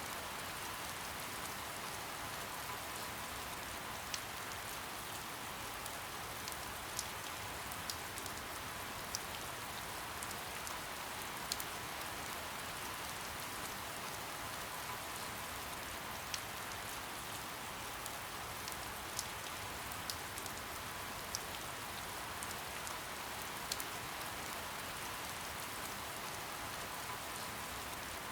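Steady soft rain falling, an even hiss with scattered individual drops ticking sharply every second or two.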